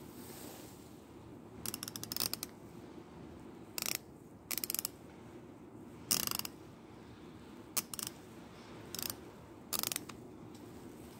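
Ratchet head of a KD torque wrench clicking as its square drive is turned by hand, in several short bursts: some a single click or two, others a quick run of clicks.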